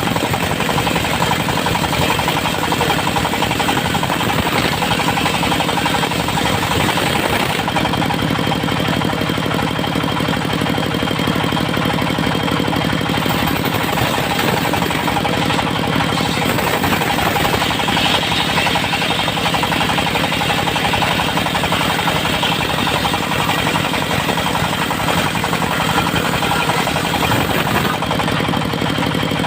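Engine of a mobile circular-saw sawmill running steadily with a rapid chugging beat; its tone shifts about seven seconds in.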